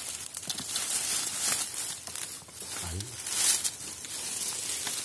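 Machete scraping and digging into soil and dry bamboo leaf litter at the base of a bamboo shoot, with the crackling rustle of dead bamboo leaves being pushed aside in uneven bursts.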